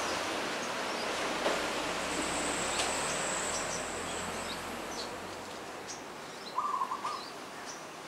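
Outdoor ambience: a steady hiss with scattered short, high bird chirps, and a thin steady high whine for a few seconds near the middle. About six and a half seconds in comes a brief burst of rapid, lower-pitched calls, the loudest sound.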